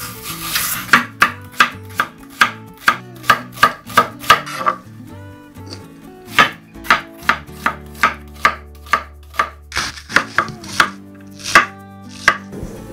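Large kitchen knife slicing green onion and cabbage on a wooden cutting board: sharp, even knocks of the blade against the board, about two to three a second, with a short pause in the middle.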